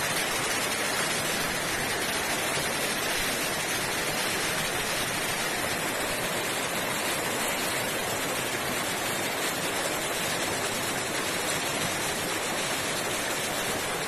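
Steady rush of flowing water from a stream, an even hiss with no breaks.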